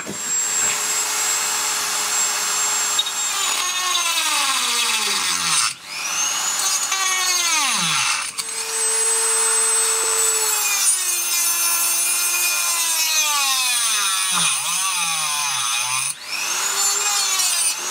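Dremel rotary tool with a small cutting disc cutting through an aluminium bridge inside an outboard's exhaust and cooling-water passage. It gives a high whine whose pitch sags each time the disc bites into the metal and then recovers, and the tool stops briefly about three times.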